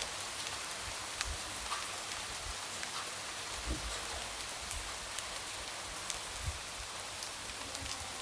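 Light rain tapping against a window: a steady, even hiss with scattered individual drops ticking.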